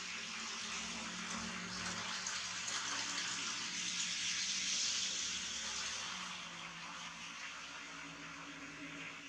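N-scale model train running on the track: a steady rolling hiss of wheels on rails with a faint low motor hum, fading over the last few seconds.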